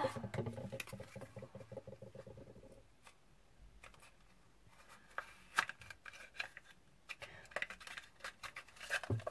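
Faint scratching, clicks and rustling of a small cardboard box of food colouring gel being handled and opened. Near the start a low hum with fine ticking fades out about three seconds in.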